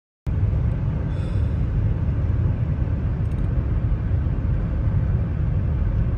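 Steady low road and engine rumble of a car driving, heard from inside the cabin. It starts abruptly a moment in.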